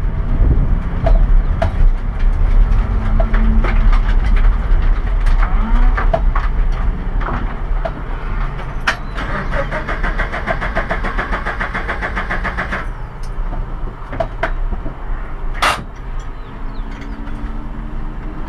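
Cabin noise of a stripped, roll-caged race car rolling slowly: the engine running at low revs under a deep rumble, with scattered knocks and rattles. A fast ticking comes in about ten seconds in and stops about three seconds later, and a short high squeak sounds near the end.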